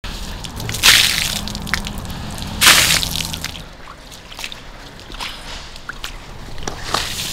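Leather shoes splashing through shallow standing water on a flooded concrete floor: two loud splashes, about a second in and again near three seconds, then lighter splashes and drips, over a low steady hum.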